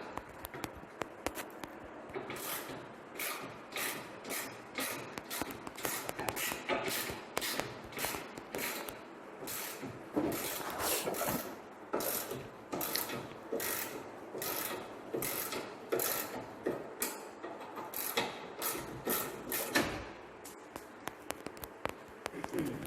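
Hand socket ratchet clicking in a long run of repeated strokes, about two a second, as bolts are worked loose on a car's front end.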